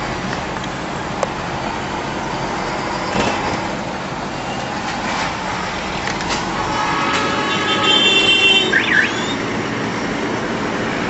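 Road and traffic noise heard from inside a vehicle moving through city traffic. About seven seconds in, a vehicle horn sounds for a second and a half, the loudest thing here, followed by a short high sound that dips and rises twice.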